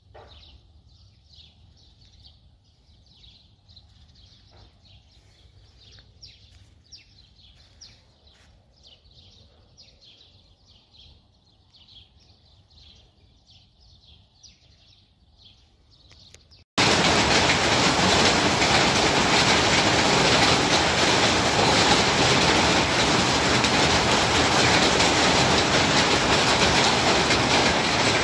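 Small birds chirping faintly and repeatedly over a quiet background, then an abrupt cut to the loud, steady, hissing roar of a hailstorm, with hail and rain pelting down.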